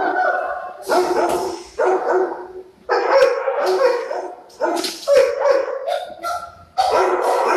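Shelter dogs in kennels barking repeatedly, mostly about a bark a second, with a quicker run of barks about five seconds in.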